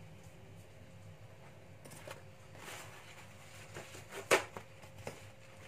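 Paper towel roll being handled close by: paper rustling that starts about two seconds in, a sharp knock about four seconds in, and a smaller one near the end, over a low steady hum.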